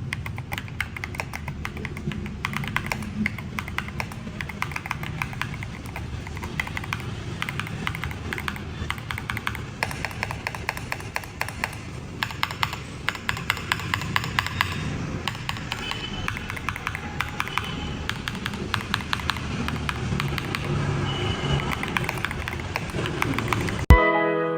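Typing sound test on a Lofree DOT Foundation mechanical keyboard with beige switches: a steady run of rapid key clacks, with a faster flurry about halfway through.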